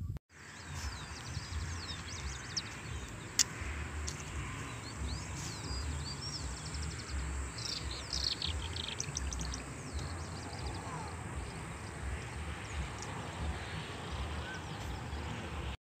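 Riverside ambience: small birds chirping and twittering in short high calls, busiest about halfway through, over a low rumble of wind on the microphone. A single sharp click comes about three and a half seconds in.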